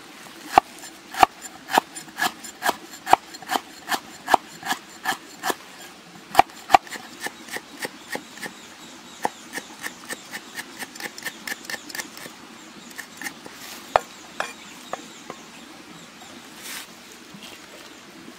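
Large heavy knife chopping lemongrass and leafy greens on a thick round wooden chopping board. The chops are strong and even at about two a second at first, then come faster and lighter, and thin out to a few scattered chops after about twelve seconds.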